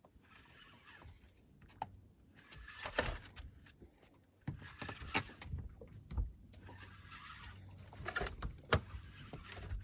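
Fishing boat's engine running with a steady low hum under scattered knocks and clicks on board, with rushing surges of noise about three seconds in and again near the end.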